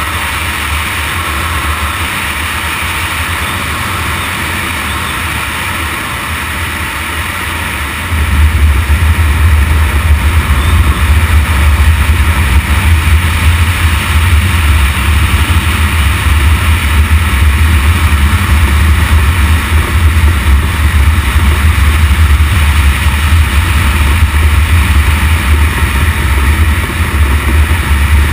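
Motorcycle riding along a gravel road: steady engine and tyre noise under a heavy low rumble, picked up by a bike-mounted action camera. The rumble jumps much louder about eight seconds in and stays there.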